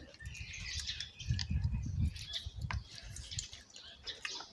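Children eating noodles with chopsticks: soft mouth and chewing sounds with small clicks of the chopsticks, over a low rumble that fades out about three and a half seconds in.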